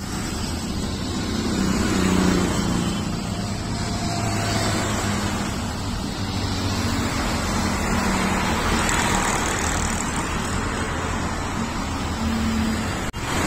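Road traffic passing on a busy road: motorcycles and cars driving by, a steady mix of engine hum and tyre noise, with single engines rising and fading as they pass.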